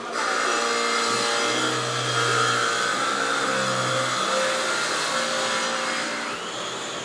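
A steady machine whir with a low hum added from about one to four seconds in.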